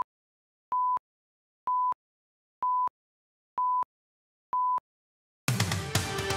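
A run of short, pure, high beeps at one pitch, one a second, five in a row with silence between them, like a broadcast countdown leader. About five and a half seconds in, electronic theme music starts.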